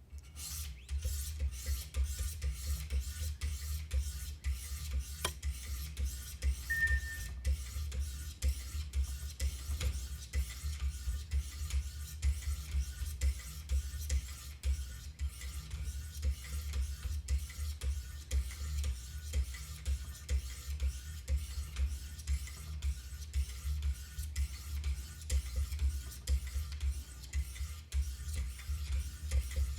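Wicked Edge guided sharpener's 400-grit diamond stones rasping up and down a CPM-M4 steel knife edge in quick, even strokes, about two a second.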